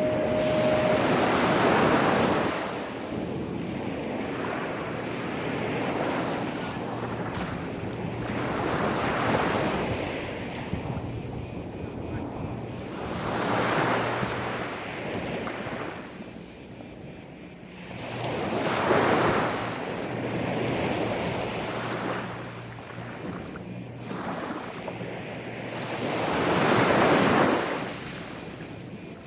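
Gentle sea waves washing onto a sandy beach, the surf swelling and fading away again every five to eight seconds, about five times.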